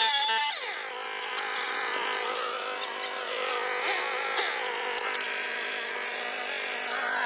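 Chainsaw engine at high revs that drops off about half a second in, its pitch falling, then runs unevenly at lower speed with a few sharp knocks.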